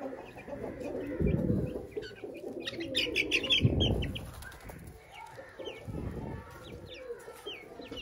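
Chickens clucking in a few low bursts. Short, high chirps from small birds run throughout, with a quick flurry of chirps about three seconds in.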